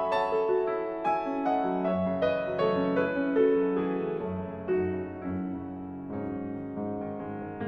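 Background piano music: a slow, gentle melody of single struck notes ringing over lower held notes.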